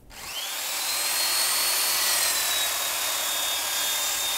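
Electric belt sander with a coarse belt running against a rough-sawn oak beam: a steady abrasive hiss under a high motor whine. The whine rises over the first second as the sander comes up to speed, then dips slightly about halfway through.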